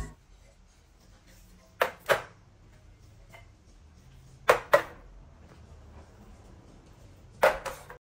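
Metal tin cans set down on a glass tabletop: three pairs of sharp knocks, a few seconds apart, over faint room tone.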